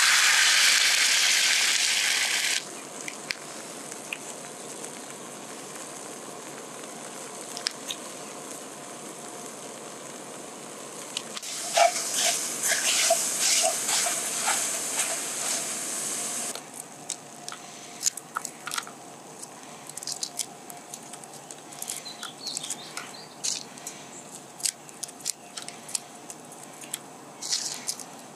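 Liquid egg sizzling loudly as it hits a hot nonstick camp frying pan on a small gas stove, dying down after a couple of seconds to a steady hiss. Around the middle the sizzle swells again with crackles as the eggs are scrambled, then settles into a hiss with scattered small crackles and ticks.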